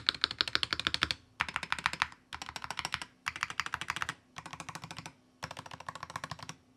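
Typing on a DAREU EK106 RT 8K full-size magnetic-switch keyboard with factory-lubed Sky magnetic linear switches on a steel plate: quick runs of keystrokes, each about a second long, with short pauses between.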